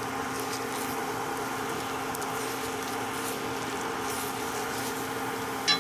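Steady hum of a running induction cooktop, with faint scrapes of a soft spatula stirring scrambled eggs in a nonstick pan. A short sharp sound comes near the end.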